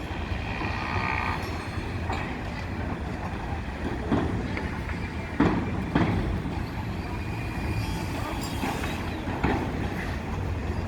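Construction-site and city ambience: a steady low rumble with a few sharp metallic clanks, about four, five and a half, six and nine and a half seconds in.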